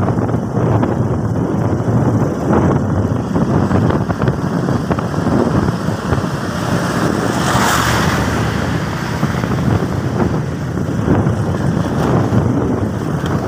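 Wind rushing over the microphone of a moving motorcycle, with its engine running underneath. A brief louder rush of noise comes a little past halfway.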